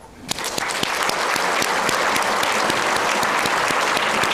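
Audience applauding, swelling up within the first half-second into steady, sustained clapping.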